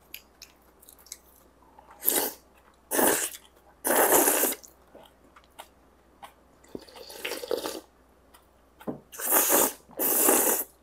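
Kongguksu noodles being slurped up out of cold soybean broth: about six short, loud slurps, with chewing between them.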